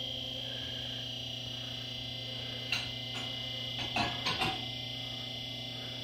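QuickJack electric hydraulic pump running with a steady hum and a high whine as the lift raises the car, with several sharp metallic clicks from the lift frames a little past halfway.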